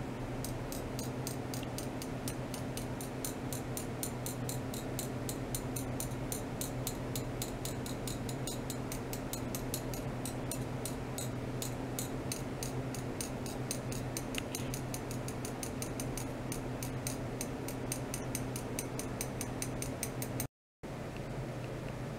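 Rapid high-pitched ticking, several ticks a second, over a steady low electrical hum, from an ultrasonic probe on a stainless steel rod driven by a function generator. The ticking stops at a brief dropout near the end.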